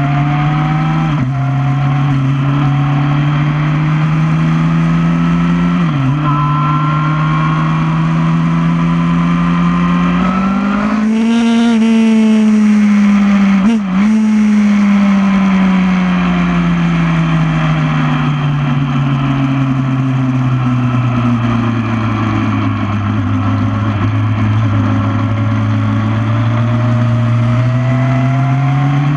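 2008 Yamaha R1's inline-four engine on track, revving up through the gears with upshifts about a second in and again about six seconds in. It climbs to its highest pitch around halfway, with wind rush on top. After a brief cut, the engine speed falls away gradually for several seconds, then picks up again near the end.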